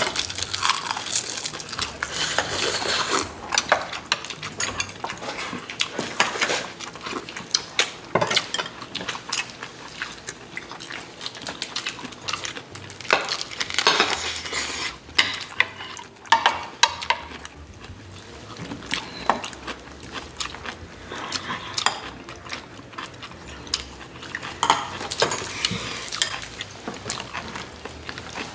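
Cutlery clinking and scraping against dishes at a meal, with many scattered sharp clicks and a few short noisy stretches of eating sounds.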